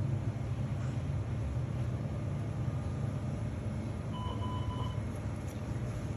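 Steady low hum, with one short high electronic beep about four seconds in.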